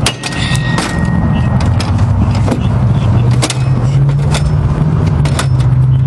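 Steel Halligan bar clanking and scraping against a padlock hasp as it is set and pried, with a sharp metal strike at the start that rings briefly, then scattered knocks. An engine idles steadily underneath.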